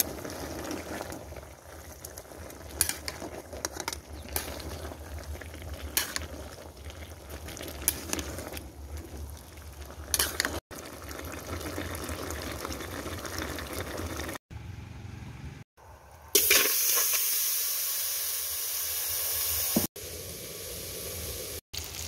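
Pinakbet cooking in an aluminium pot, heard in several short cuts. First the vegetables simmer, with light clinks of a metal ladle against the pot. Later comes a louder steady sizzle, and near the end pork belly frying in oil.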